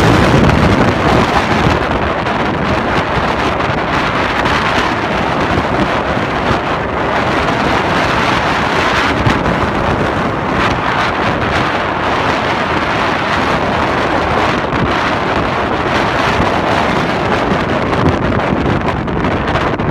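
Strong wind buffeting the microphone, loud and steady, with heavy ocean surf mixed in underneath.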